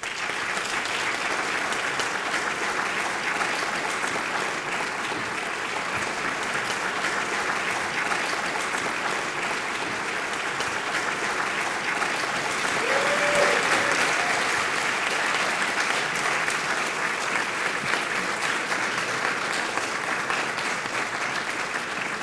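Audience applauding steadily, growing slightly louder about halfway through.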